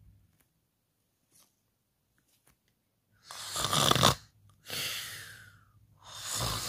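A person's voice making three loud, breathy mock snores, starting about three seconds in.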